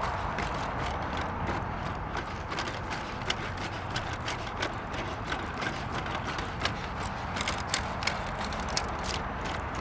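Boston Dynamics Spot robot dog walking over dry grass: a run of irregular mechanical clicks and ticks from its legs and feet stepping, over a steady background hum of traffic.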